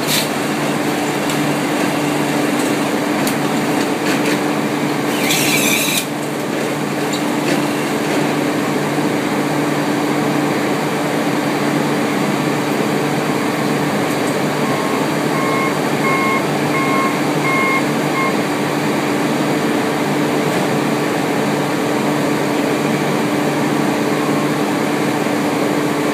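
Steady hum of a vehicle engine, with a short hiss of air about five seconds in and a run of about five short beeps a little past the middle.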